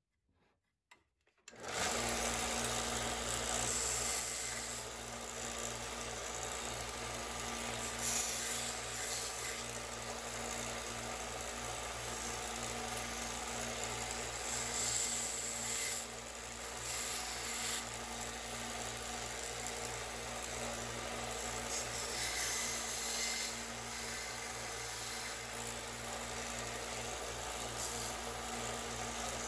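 Small narrow-belt benchtop belt sander starting about a second and a half in, then running steadily with a constant motor hum. A 3D-printed TPU part is pressed against the moving belt, so the sanding noise swells and eases.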